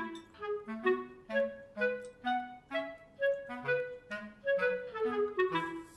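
Background music: a light, bouncy instrumental tune of short, quick notes.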